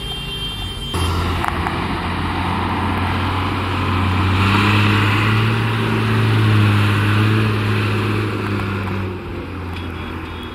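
Loaded cargo truck's diesel engine pulling hard at steady revs as the truck climbs past, a deep even engine note that swells in the middle and drops off near the end.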